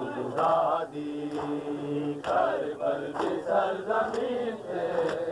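Men chanting a Shia mourning chant together in phrases that rise and fall, with a few sharp slaps of matam, hands striking bare chests, between the phrases.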